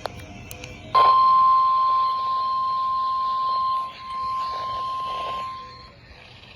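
NOAA Weather Radio warning alarm tone: one steady, high single tone that starts sharply about a second in and holds for about five seconds, dipping in loudness briefly about four seconds in, marking the station's weekly test.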